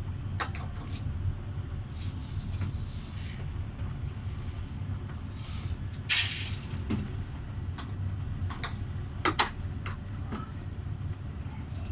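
Bosch tumble dryer running with a steady low hum, with scattered clicks and knocks and a short loud hissing rustle about six seconds in.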